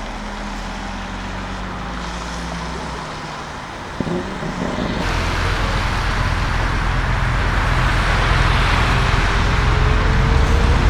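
Lamborghini Urus Performante's twin-turbo V8 with Akrapovic exhaust running with a steady low drone. About four seconds in there is a sharp click, then the engine note and a rushing noise grow steadily louder.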